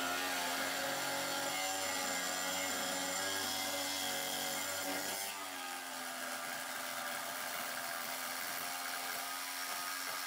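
Makita jigsaw running steadily as its blade saws through a metal angle clamped in a vise. The motor starts up suddenly, its tone shifts slightly about halfway, and it cuts off near the end as the cut is completed.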